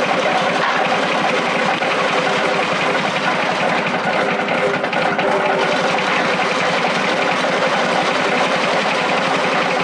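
Small single-cylinder petrol engine running steadily, driving a coffee cherry pulping machine as it husks cherries and shakes the beans out over its sieve.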